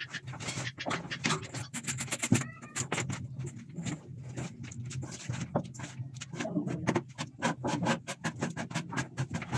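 Electrical wire being handled and fed into red corrugated plastic flexible conduit: a steady run of quick scraping clicks and rustles as the wire and the ribbed tubing rub together.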